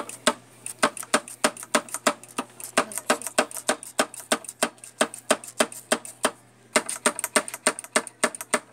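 Front brake lever of a motorcycle pumped over and over, clicking about three to four times a second, to build pressure in a freshly rebuilt brake master cylinder while bleeding it.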